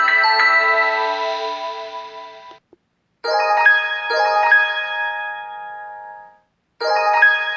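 Samsung SGH-M620 polyphonic ringtones playing through the phone's speaker. One melody cuts off about two and a half seconds in. After a short gap a new short phrase of ringing notes plays and fades out, then starts over near the end as the ringtone loops.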